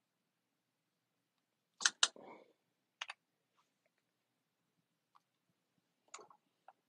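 Handling noise from the recording phone or camera being touched: a few sharp clicks and taps, a close pair about two seconds in with a short rustle after it, another pair a second later, and smaller clicks near the end.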